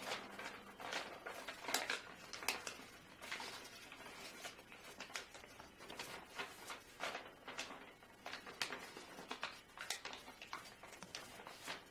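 Origami paper rustling and crinkling in the hands as its creases are pressed and reversed: a quiet, irregular string of small paper crackles.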